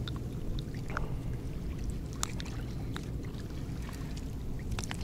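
A steady low rumble, with a few faint clicks and rustles from hands handling a freshly caught small bream.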